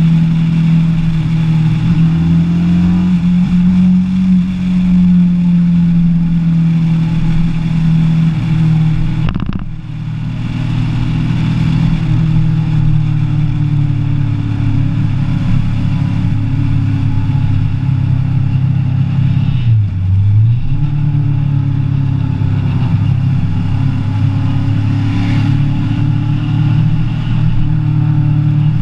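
Kawasaki ER-6n's parallel-twin engine running steadily under way. The note drops out briefly about ten seconds in and comes back at a lower pitch, with another short dip and recovery near twenty seconds.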